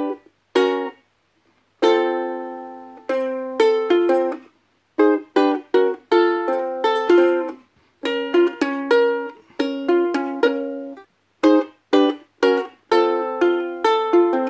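Ukulele strummed through a slow sequence of chords, some strums short and choppy and some let ring, with a pause of about a second near the start.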